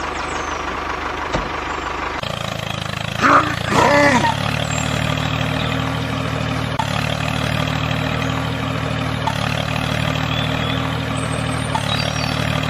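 Tractor engine running steadily at a low hum, with a brief loud call-like sound about three seconds in.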